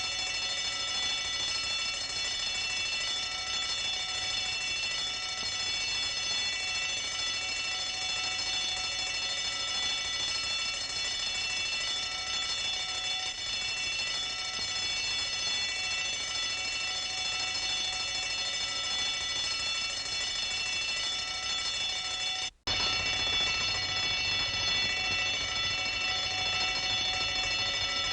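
A bell ringing continuously and steadily, like an alarm bell. About three-quarters of the way through it cuts out for a moment and a second bell of the same kind takes over, slightly louder and with a low hum beneath it.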